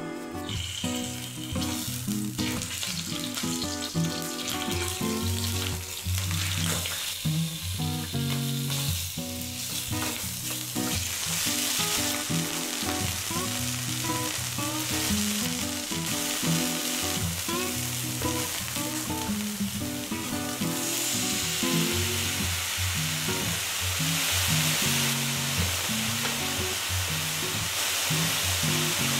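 Chicken skin sizzling in hot oil in a frying pan as it renders its fat, the sizzle growing louder about ten seconds in. Near the end, chopped green onion and chicken are stir-fried with a spatula. Background music plays throughout.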